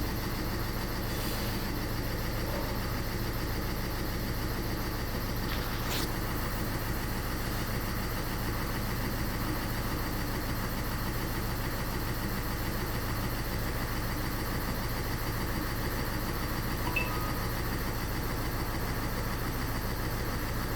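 Renault Scenic's 1.5 dCi four-cylinder diesel engine idling steadily while misfiring on cylinder one, a fault logged as an open injector control circuit that the mechanic blames on the cylinder-one injector. A single sharp click about six seconds in.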